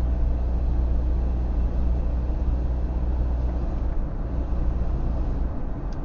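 Car cabin noise while driving: a steady low rumble of engine and tyres picked up by the dashcam's microphone.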